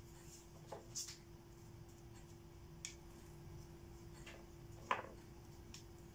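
Faint scattered taps and light rustles of gloved hands placing and pressing stencil pieces onto a work board, about six small knocks in all, the loudest in the second half, over a faint steady hum.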